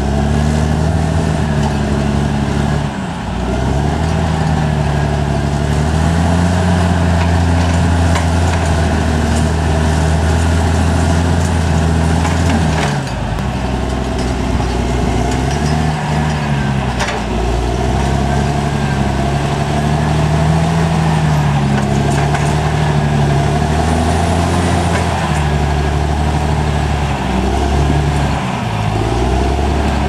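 Caterpillar D6R XL bulldozer's diesel engine working hard as the blade pushes soil and boulders, its pitch repeatedly sagging under load and picking up again, with a couple of sharp knocks partway through.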